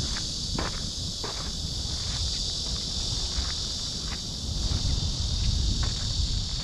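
Steady high-pitched chorus of insects, with the footsteps of someone walking ticking faintly through it and a low rumble underneath.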